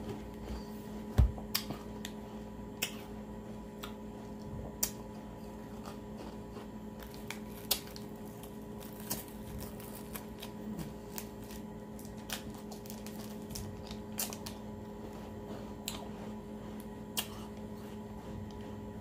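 Scattered soft clicks and crinkles of a plastic freeze-pop sleeve being squeezed and eaten from, the sharpest about a second in, over a steady low hum.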